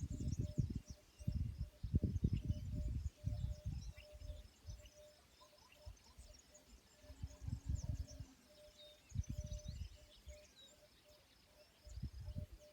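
Outdoor ambience: small birds chirping, with a faint pulsing tone repeating about three times a second. Irregular low rumbling gusts come and go, loudest in the first half and again near the end.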